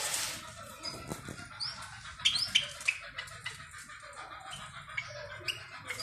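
Caged small birds chirping: a scatter of short, high chirps, several of them rising in pitch, with a brief rush of noise at the very start.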